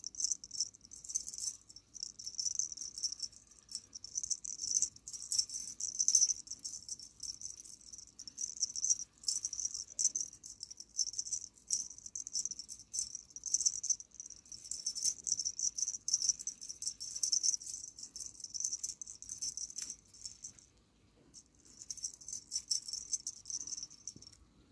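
Small bells and beads on a cat wand toy jingling in quick, repeated shakes as the toy is waved, with a short pause near the end.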